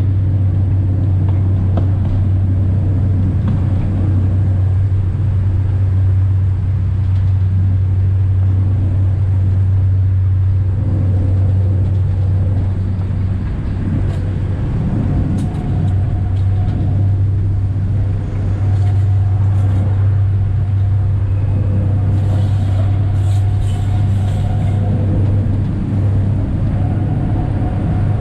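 Diesel locomotive running steadily, heard from inside the cab: a loud, even low hum. Faint whining tones come and go in the second half, and a few brief high squeaks follow later on.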